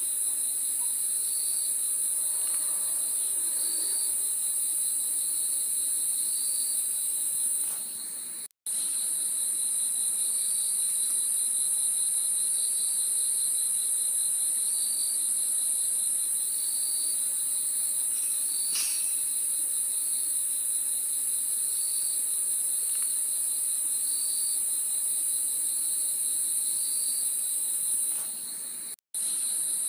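A steady, high-pitched insect chorus, with a separate chirp repeating about once a second over it. The sound cuts out briefly twice, about a third of the way in and again near the end.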